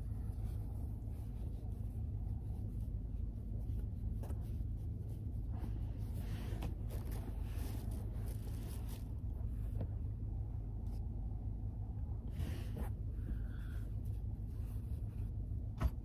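Fleece blankets and clothes rustling softly in a few brief swishes as they are handled and folded, over a steady low rumble, with a single sharp click just before the end.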